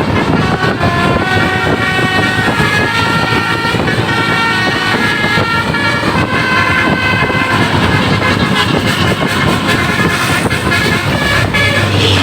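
Telolet basuri musical horn on a Jetbus 5 coach playing a melody of quick, steady notes, over road and engine noise.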